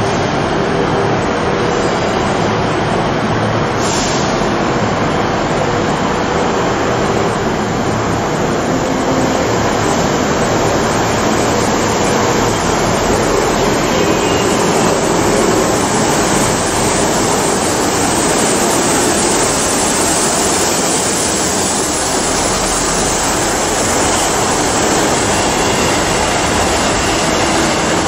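ScotRail Class 158 diesel multiple unit running slowly past: a steady rumble from its underfloor diesel engines and wheels on the rails, with one short click about four seconds in.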